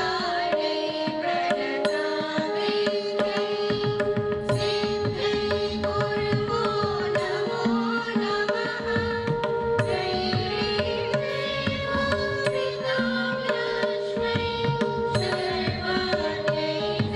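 Indian devotional music without words: held melody notes over a steady drum rhythm.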